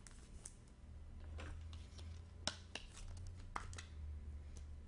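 Trading cards being handled and shuffled, faint scattered soft clicks and rustles over a low steady hum.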